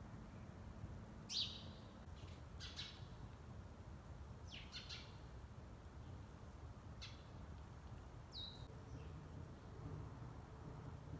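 Faint bird chirps: a handful of short, high calls spaced a second or two apart, one of them a quick falling whistle near the end, over a low steady hum.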